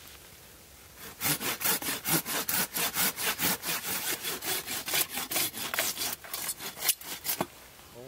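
Curved pruning saw cutting through a dead branch, bucking it into firewood lengths: rapid, even back-and-forth strokes, about four a second. The strokes start about a second in and stop just before the end.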